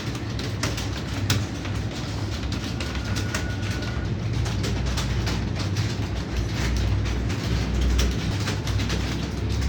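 Clatter of many computer keyboards being typed on at once, an irregular stream of key clicks over a low steady hum.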